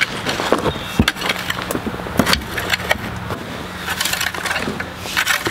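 Garden fork raking and scraping through loose soil in a wooden raised bed: irregular scrapes and clicks, with sharper knocks about a second in and again a little past two seconds, over a steady low hum.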